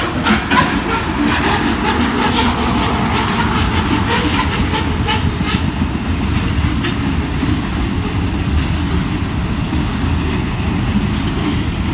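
Freight train cars rolling past: covered hoppers, then double-stack intermodal container cars. A steady low rumble with sharp wheel clicks, most of them in the first half.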